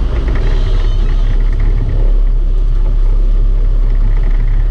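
Sport-fishing boat's engines running steadily, a loud deep drone that grows a little stronger about two seconds in, with the wash of water along the hull.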